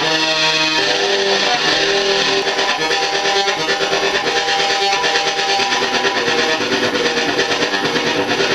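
Electric guitar strings plucked and strummed through an FX50 effects processor and amplifier, giving a steady, dense wash of overlapping held notes shaped by the processor's effects.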